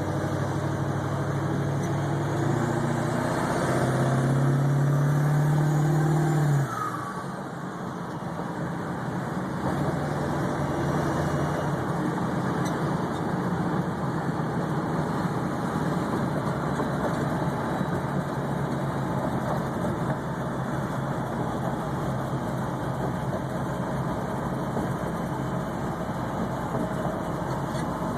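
Ford 7.3 Power Stroke turbo-diesel V8 idling. For the first several seconds it runs faster and louder, climbing a little around four seconds, then drops abruptly to a lower, steady idle about six seconds in. This is the high, unsteady idle the owner is chasing, which he suspects comes from a bad ICP sensor or fuel pressure regulator.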